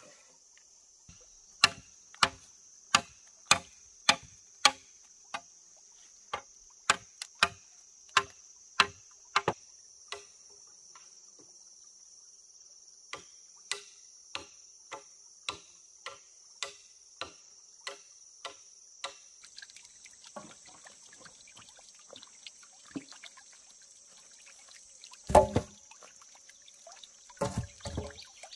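A hand tool striking over and over: sharp knocks about one and a half a second, a pause, then fainter knocks, and two louder clattering blows near the end. A steady high insect buzz runs underneath.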